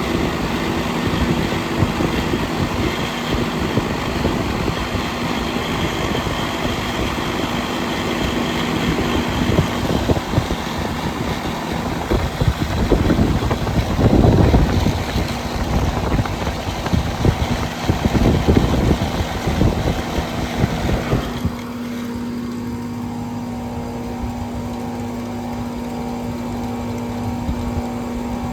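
Central air conditioner condenser unit running, its fan's discharge air buffeting the microphone with a gusty rushing noise. About 21 seconds in the buffeting drops away, leaving the unit's steady electrical hum and fan drone.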